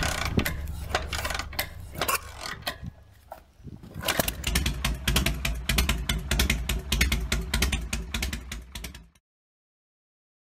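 Logo-intro sound effects: a low rumble under dense, irregular mechanical clicks and rattles. It thins out briefly, builds again, then cuts off abruptly about nine seconds in.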